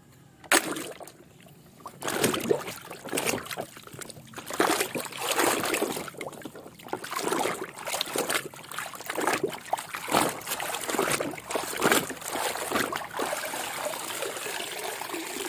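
Water splashing and trickling over a small toy truck as it is rinsed clean, in uneven bursts, with a sharp knock about half a second in.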